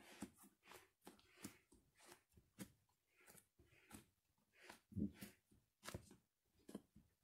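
Bare feet stepping on and squashing sliced white bread: faint, irregular soft crunches and crackles of crust and crumb, about two a second, the loudest about five seconds in.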